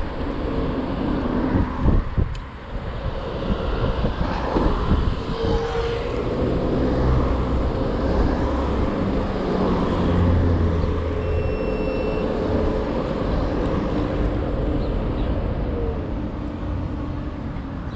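Xiaomi Mi 1S electric scooter riding through city traffic: wind rumble on the microphone and tyre noise on asphalt, with car traffic around. A thin steady whine comes and goes in the middle.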